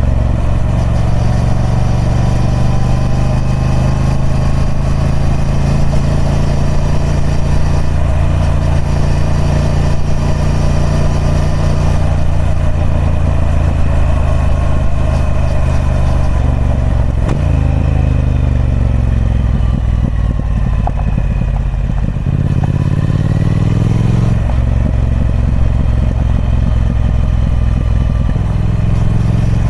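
Triumph Speed Twin 1200's 270-degree parallel-twin engine running through its stock exhaust at a steady pitch. For a few seconds past the middle the note falls, then it rises again and levels off.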